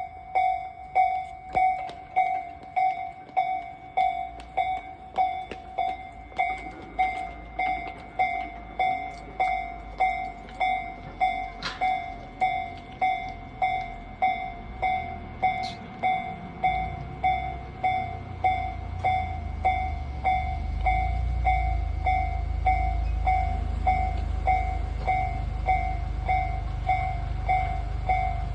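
Japanese railway level-crossing alarm ringing its repeated 'kan-kan' tone, about one and a half strikes a second. Partway through, a train's low rumble builds and rolls through the crossing under the alarm.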